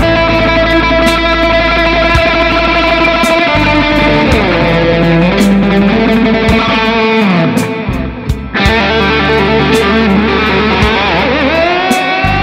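Electric guitar playing a slow A minor blues lead, sustained notes with string bends, over a steady low bass line. The playing dips briefly about two-thirds of the way through, then picks up again.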